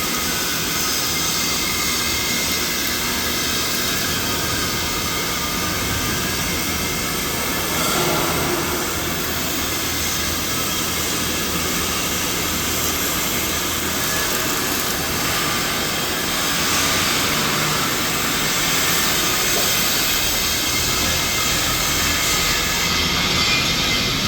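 Steady, loud machine noise, an even hiss-like rush with a few faint steady tones, swelling slightly about 8 and 17 seconds in.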